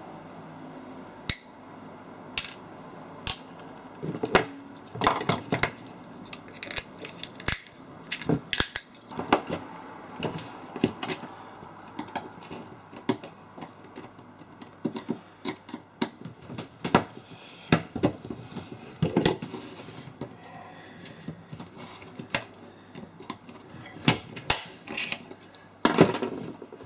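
Irregular clicks, knocks and clatter of hand tools working on metal, the sharp hits coming at uneven intervals with a louder cluster near the end.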